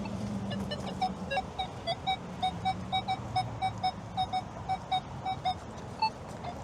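Handheld metal-detecting pinpointer beeping in quick, short, evenly spaced beeps at one pitch, about four a second, the sign of a metal target close to its tip. The beeps pause briefly near the end and then resume.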